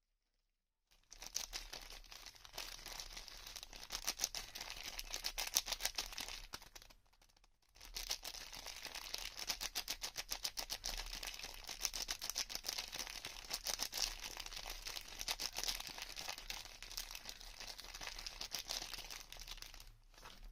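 Soap packaging crinkling as it is unwrapped by hand, starting about a second in, with a short pause about seven seconds in.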